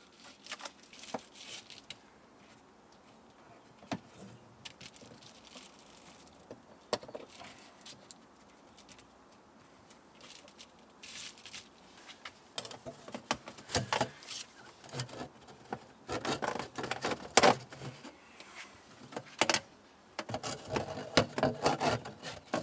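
Handling sounds as a homemade air-conditioner vent adapter is fitted and strapped in place: scattered clicks, scrapes and rustles. They are sparse at first and come thick and fast in the second half.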